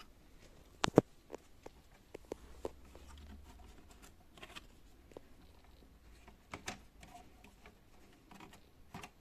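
Plastic clicks and taps of an HP 255 G5 laptop's back cover being pried off its case, with a sharp snap about a second in and another few clicks a little past the middle.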